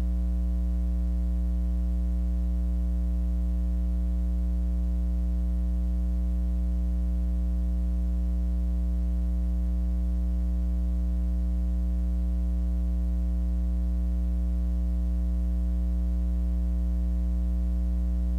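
Steady electrical mains hum: a strong low buzz with a row of fainter higher tones above it, unchanging throughout.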